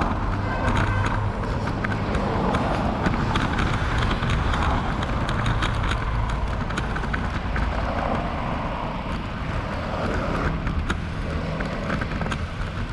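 Noise of riding a bicycle: wind buffeting the microphone and a steady road rumble, with many small clicks and rattles scattered through it.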